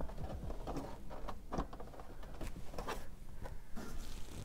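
Small, irregular clicks and knocks of hard plastic parts being handled and pushed together as the legs of a hydroponics unit are worked into their plastic reservoir base.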